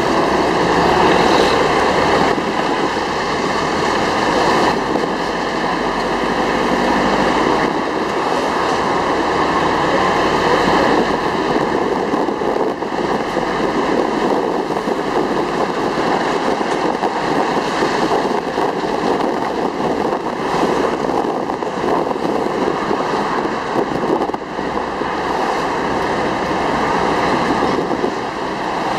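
Steady rushing noise of a moving jeepney ride: engine and road noise mixed with wind on the microphone, with no breaks.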